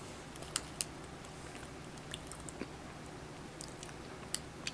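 A person chewing a bite of a small strawberry cheesecake bundt cake, faint, with scattered soft mouth clicks over a faint steady hum.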